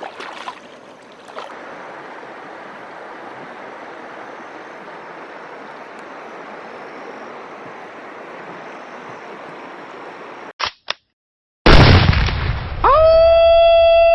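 Stream water running steadily for about ten seconds, then a sudden cut. After a moment of silence, a loud boom hits, and about a second later a strong sustained tone with many overtones sets in and holds, stepping down slightly near the end.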